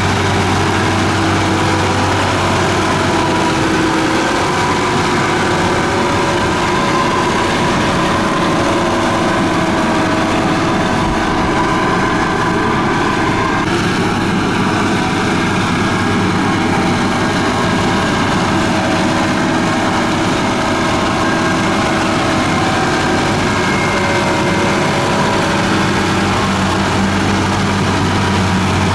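Komatsu bulldozer's diesel engine running steadily under work, its pitch shifting slightly now and then.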